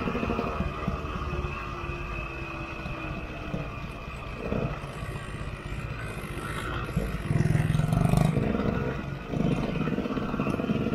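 KTM 125 EXC two-stroke single-cylinder dirt bike engine running under way, revving harder from about seven seconds in, with a brief drop off the throttle shortly after before picking up again.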